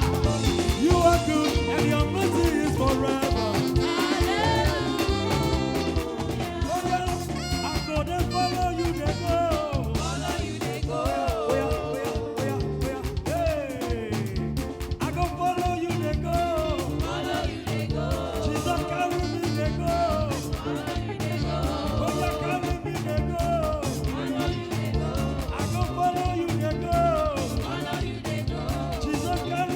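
Live praise-and-worship band music in an upbeat African gospel style, with drums keeping a steady dance beat under pitched instruments.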